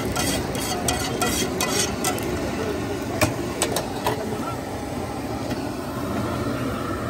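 A metal spoon scraping and tapping a steel pan as egg-and-gravy omelette mixture is scooped out onto a plate, with a run of short clinks and then three sharper ones about three to four seconds in, over a steady frying sizzle.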